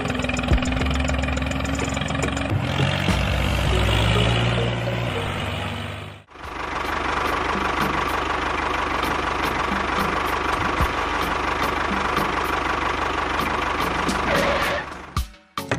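A motor running steadily as the miniature model tractor drives. The sound breaks off for a moment about six seconds in, then runs on with a steady whine until shortly before the end.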